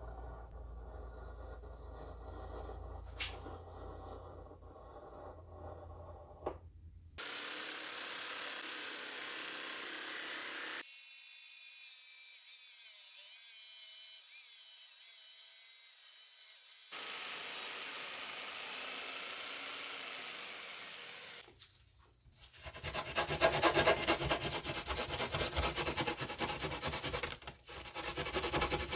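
Workshop tool noise in a run of short cuts, ending in several seconds of loud, fast rasping as the edges of drain holes in a foam-cored boat hatch are sanded.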